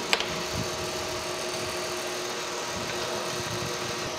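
Steady hum of electric machine-shop machinery running, with one sharp metallic click just after the start.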